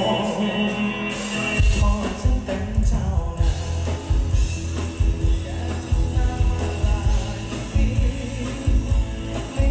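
Live band music from a Thai luk thung song with singing: sustained keyboard-like tones at first, then the drums and bass come in with a steady beat about one and a half seconds in.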